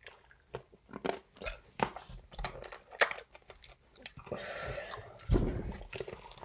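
Someone crunching and chewing a hard-boiled candy: a run of irregular sharp crunches, with a louder thump about five seconds in.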